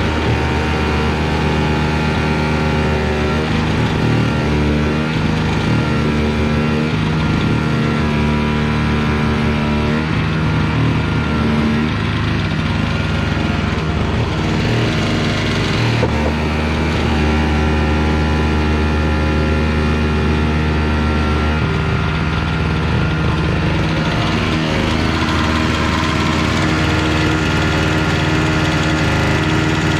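Small snowblower's engine running steadily, its pitch shifting down and back up a few times.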